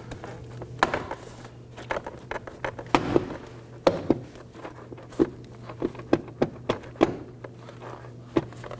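Plastic retainer clips of a Toyota Camry front door trim panel snapping loose one after another as the panel is pulled away by hand: a series of irregular sharp pops and clicks, with a faint steady low hum underneath.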